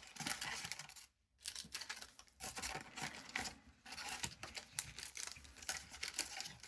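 One Piece Card Game booster-pack foil wrapper crinkling and tearing while the cards inside are handled, in irregular short rustling bursts with a brief pause about a second in.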